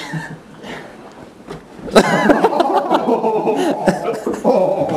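People laughing loudly, starting suddenly about two seconds in, after a couple of seconds of scattered soft knocks and shuffling.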